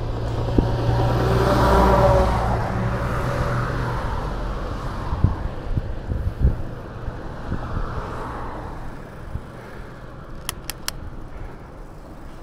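A car passing close by: its engine hum swells to a peak about two seconds in, then fades away. Scattered knocks follow, and three sharp clicks come near the end.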